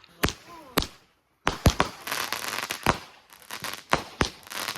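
Consumer fireworks going off: two sharp bangs, then after a short break a stretch of dense crackling broken by more sharp bangs.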